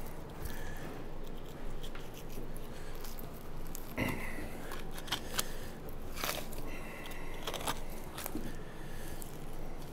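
Boning knife cutting and scraping through the dry, crusted outside of a 42-day dry-aged beef chuck, a series of short strokes as the chuck roll is worked free. The sharpest stroke comes about four seconds in, with more around six and seven and a half seconds.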